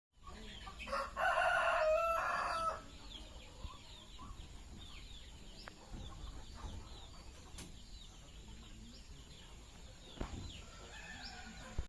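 An ayam kampung (Indonesian village chicken) rooster crows once about a second in, then faint short high chirps and clucks from the flock carry on.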